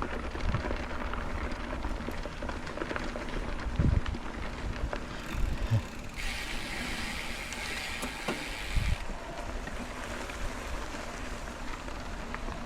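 Mountain bike rolling along a dirt trail, with tyre noise, wind on the microphone and occasional low knocks from bumps. A brighter hiss runs for about three seconds, starting about six seconds in.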